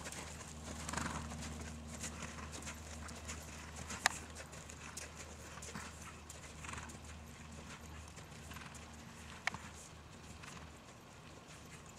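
Hoofbeats of a Hanoverian mare moving under saddle on sand arena footing, over a steady low hum. Two sharp clicks stand out, about four seconds in and near nine and a half seconds.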